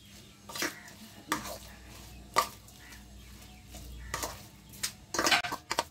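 Wood-apple pulp being mashed and mixed by hand in a stainless steel bowl, with irregular scrapes and clinks against the metal; the sharpest clink comes near the middle, and a quick run of scrapes comes near the end.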